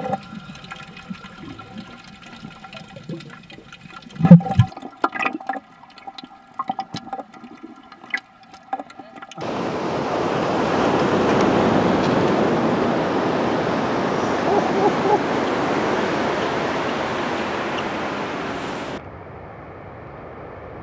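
Scattered clicks and knocks with one loud thump about four seconds in, then a steady rush of water-like noise that stops abruptly near the end.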